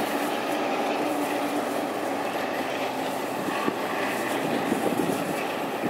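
A Metro-North train hauled by a GE Genesis locomotive running past, heard as a steady rumble.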